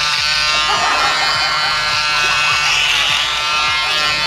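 Corded electric hair clippers buzzing steadily as they shave hair off a head down to the scalp.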